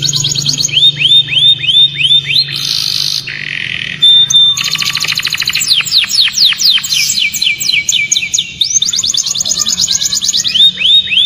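Domestic canary singing a fast, varied song: rapid trills and runs of repeated falling whistled notes, broken by a buzzy rattle about three seconds in and a short held note just after.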